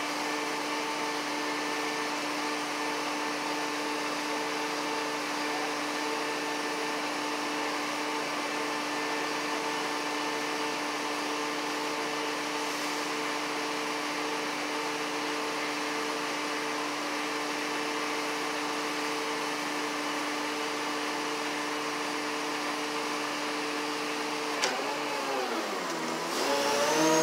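A motor running steadily, humming with a couple of steady tones. Near the end there is a click, then the hum's pitch sags and climbs back up.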